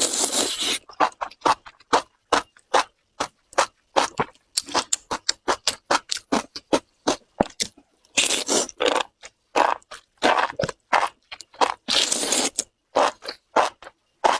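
Close-miked chewing of spicy enoki mushrooms: wet, crunchy chews at about three a second, with a few longer slurping, smacking stretches.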